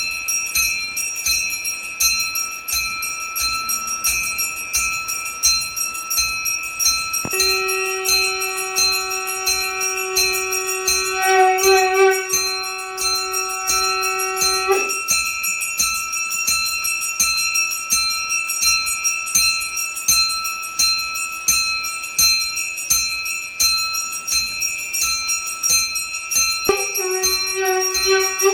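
A metal hand bell rung rapidly and steadily during an evening puja, its ringing continuous. Twice a long held note with overtones sounds over the bell: once for about seven seconds a third of the way in, and again near the end.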